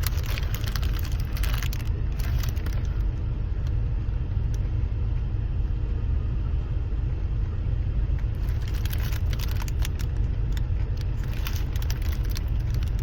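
Steady low rumble of a car heard from inside the cabin. Short clicks and rustles come in the first few seconds and again from about nine seconds in.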